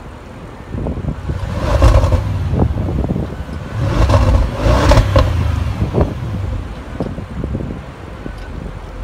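2017 Audi S8 Plus 4.0-litre twin-turbo V8 exhaust, with the exhaust in its normal mode, blipped twice from idle. Each rev swells over a second or so, then it drops back to a steady idle.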